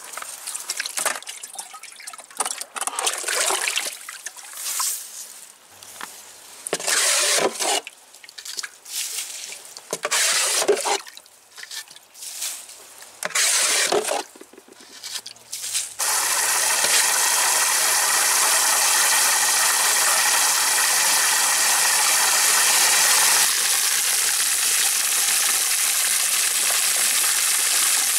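Dirty water being bailed out of a small garden pond with a bucket, in irregular splashing bursts. About halfway through this gives way abruptly to the steady hiss and splash of a hose jet pouring into the pond as it is refilled with fresh water.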